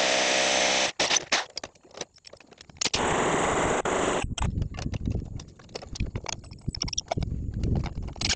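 Handheld power drill running in two spells: a steady whine until about a second in, then a louder, rougher run of about a second and a half starting about three seconds in. After it, a string of short clicks and knocks as metal parts are handled.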